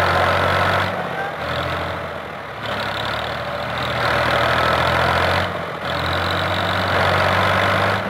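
Fiat 480 tractor's diesel engine labouring under heavy load while towing a truck stuck in a ditch, revving up and easing back several times.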